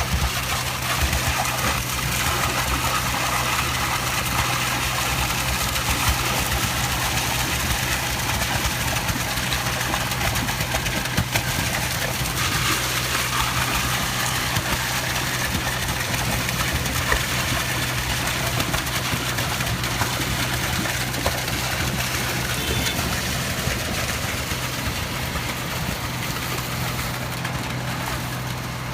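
Concrete pump truck's diesel engine running steadily at a constant speed while pumping concrete into pier holes, with a continuous hum and a wide hiss over it.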